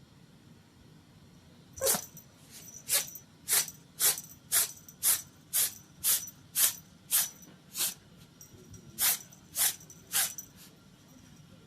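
A cat sneezing over and over in a fit: about fourteen short, sharp sneezes, roughly two a second, with a brief pause before the last three.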